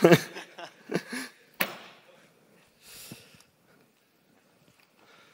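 A person's brief, indistinct vocal sounds with a sharp click in the first two seconds, then a short breath about three seconds in, then quiet.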